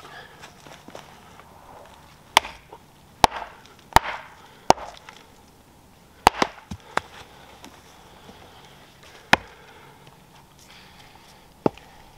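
Bearded axe chopping and splitting firewood that is a little frozen, on a chopping block: about eight sharp, loud chops at uneven intervals, with a few lighter knocks between.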